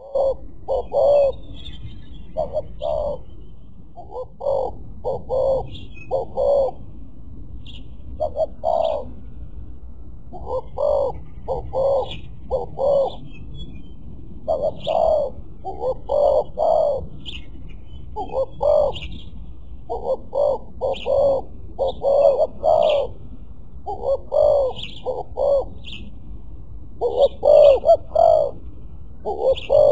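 Spotted doves cooing: deep coo notes about half a second long, in phrases of two or three, repeated over and over. Faint, high small-bird chirps sound in the background.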